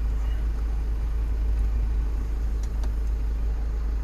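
The SsangYong Korando's diesel engine idling, a steady low rumble heard inside the cabin, with the climate-control fan blowing air. Two faint clicks come near three seconds in.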